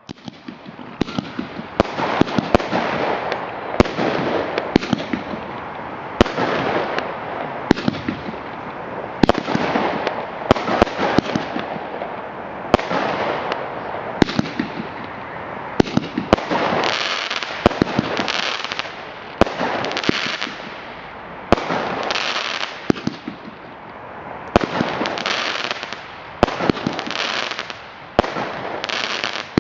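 Fireworks going off: a quick string of sharp bangs, with dense crackling bursts between them, in waves about every second or two.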